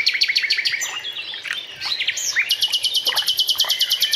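Several songbirds singing: mixed chirps and whistled glides, with a fast even trill of high repeated notes, about ten a second, from about two and a half seconds in.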